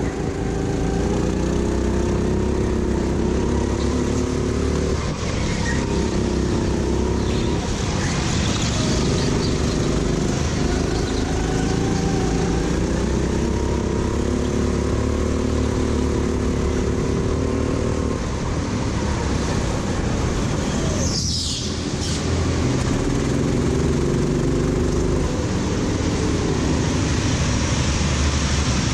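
Go-kart engine running hard on track, its pitch repeatedly rising and falling with the throttle. About 21 seconds in there is a brief sound that falls quickly from high to low.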